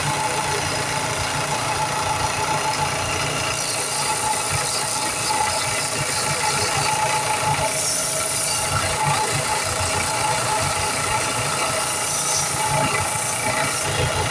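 Knife-making belt grinder running steadily, with a grinding hiss as the handle is shaped against the belt.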